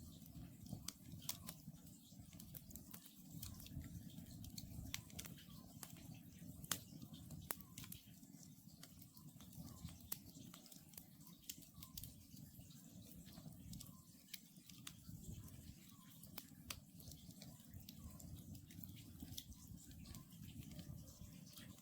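Wood campfire crackling, with scattered sharp pops over a low, steady hiss of the burning fire. An Oriental scops owl calls faintly over and over in the distance.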